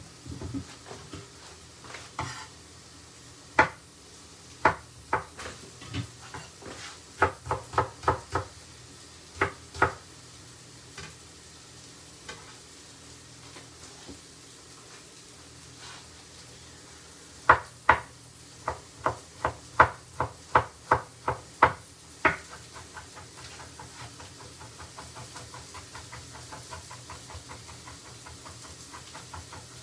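Chef's knife chopping cauliflower on a wooden chopping board: sharp knocks of the blade on the board in irregular runs, turning near the end into rapid, lighter, even chopping. Underneath, onions and courgettes sizzle faintly in a frying pan.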